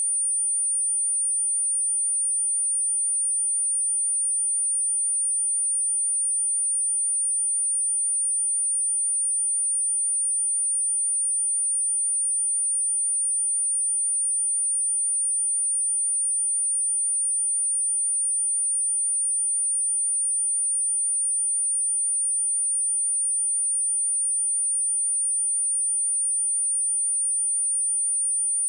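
A steady, unbroken 9298 Hz sine-wave test tone: a single high-pitched whistle with no change in pitch or loudness. It is played as a speaker test and a tone meant to shake water and dust out of a speaker.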